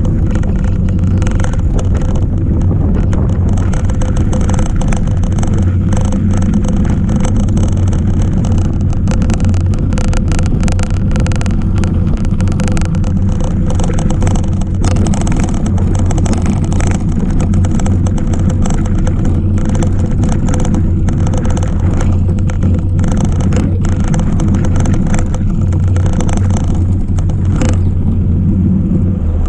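Riding noise from a cyclocross bike on a snowy trail, picked up by a camera mounted on the bike: a loud steady rumble of tyres and wind on the microphone, with frequent small rattles and knocks as the bike goes over the rough ground.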